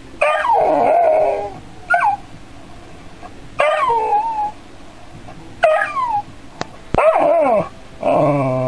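A dog whining and yelping in about six short cries, each sliding down in pitch, the last one longer and lower. It is the sound of a dog both curious about and afraid of a robot cat.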